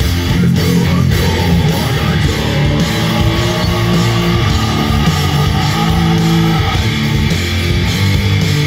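Thrash metal band playing live: distorted electric guitars riffing over bass guitar and drums.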